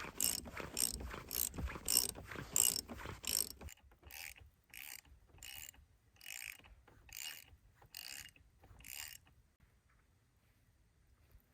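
Ratcheting crank turning a stabilizer jack at the back of a small camper trailer: rhythmic clicking strokes about every half second, which change and grow quieter and slower a little under four seconds in and stop about nine seconds in.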